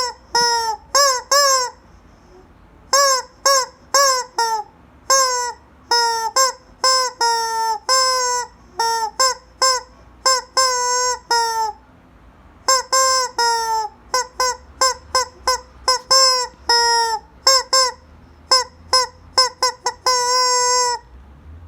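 Squeaky rubber chicken toy squeezed over and over, giving dozens of short honking squawks that each drop slightly in pitch, in uneven runs with some quick bunches near the end.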